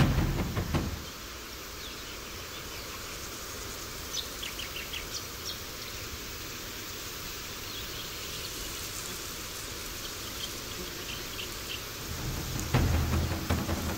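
Steady outdoor hiss of forest ambience, with a few faint short high chirps about four to five seconds in and again around nine to ten seconds. A louder low rumble fills the first second and comes back near the end.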